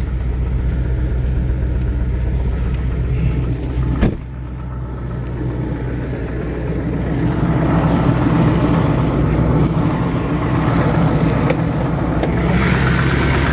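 Ford 7.3 L Power Stroke V8 turbo diesel idling steadily, still cold a couple of minutes after an unplugged cold start. There is a single sharp knock about four seconds in, and the engine gets louder in the second half.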